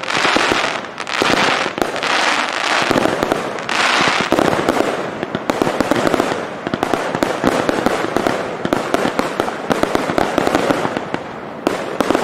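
Fireworks display: a dense barrage of aerial shells bursting in rapid succession amid continuous crackling, with the heaviest surges in the first four seconds.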